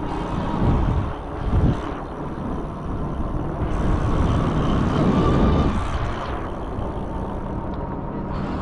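Electric bike riding along: wind buffeting the microphone in gusts over the rumble of the tyres, with a faint steady whine from the ebike's motor.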